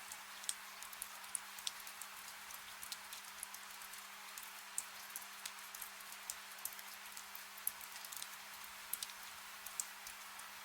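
Soft steady rain hissing, with many sharp drops ticking at irregular moments several times a second. A faint steady low hum runs underneath.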